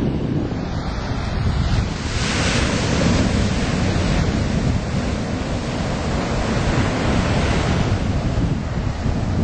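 Ocean surf breaking and washing up the shore, with wind buffeting the microphone. A louder rush of breaking wave comes about two seconds in.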